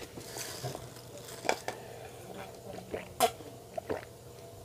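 A few faint clinks and knocks of a glass of iced orange juice being picked up and drunk from.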